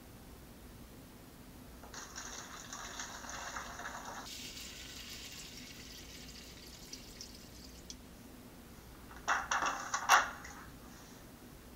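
Wood-ash extract poured from a bucket through a plastic funnel into a plastic bottle, splashing for about six seconds. The sound turns higher and thinner about halfway through. Near the end come a few knocks and a sharp clack as the bottle and bucket are handled.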